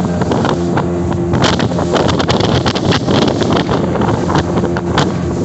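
A speedboat's engine running steadily under way, with wind buffeting the microphone and frequent short knocks over the water noise.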